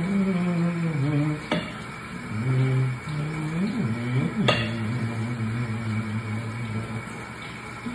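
A man humming a tune in a low voice over a steady hiss of running tap water, with two sharp clinks of dishes, about one and a half seconds in and again near the middle.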